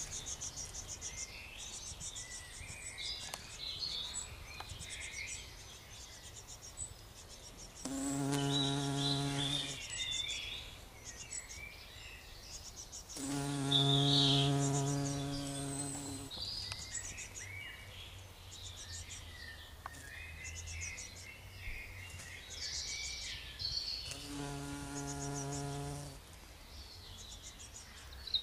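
Heath bumblebee queen buzzing in flight between dead-nettle flowers. Her steady low wingbeat hum comes close and loud three times, for a second to three seconds each, and between those passes it is faint.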